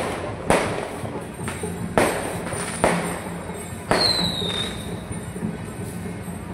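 A series of five sharp bangs, irregularly spaced over about four seconds, each trailing off in an echoing decay. A short falling whistle comes just after the last bang.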